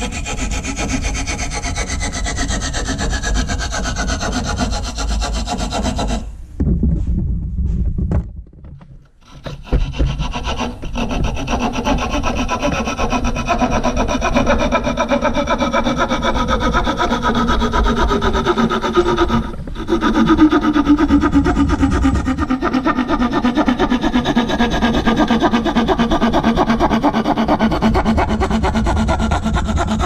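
A freshly sharpened Victorinox Hiker Swiss Army knife saw blade cutting through a one-by wooden board held in a vise: fast back-and-forth rasping strokes. There is a pause about eight seconds in and a brief one near twenty seconds, and a faint ringing note under the strokes slowly falls in pitch.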